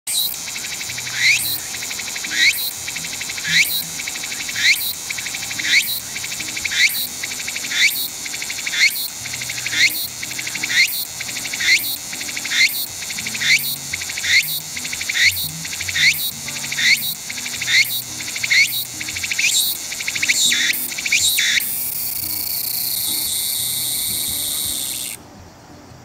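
Tsukutsuku-boshi cicada (Meimuna opalifera) male singing loudly: a long run of repeated rising phrases, about one a second, that speed up near the end. They give way to a steady buzz of about three seconds that stops abruptly.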